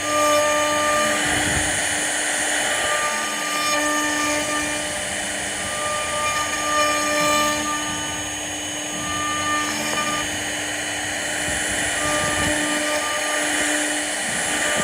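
CNC router carving wood: a steady machine whine made of several held tones, some of which drop out and come back every second or so as the cutting head moves.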